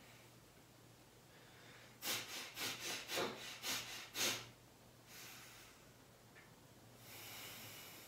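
A man breathing forcefully through his nose: a quick run of about nine sharp sniffs and puffs in just over two seconds, the rapid chest-breathing stage of a breathing exercise, then a slower, longer breath near the end.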